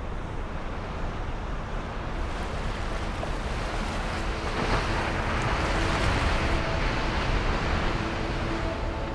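Sea waves washing on a sandy beach: a steady rush of surf that swells louder about halfway through, then eases.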